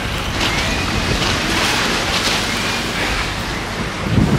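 Wind buffeting the camera microphone outdoors: a steady, loud rush with a low rumble.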